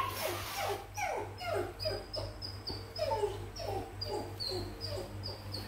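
An animal's repeated short cries, each falling in pitch, several a second, with faint high chirps alongside.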